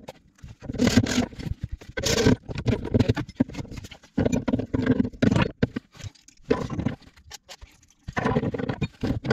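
Handling noise from plumbing work: scraping, rattling and knocking of metal fittings and tools in short, irregular bursts.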